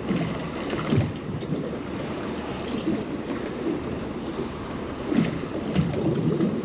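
Water lapping and slapping against a drifting boat's hull, with wind buffeting the microphone and a few short knocks.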